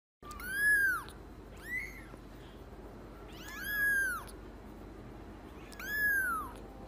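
Young kitten meowing four times, high thin mews that rise and fall in pitch, the second one short and fainter.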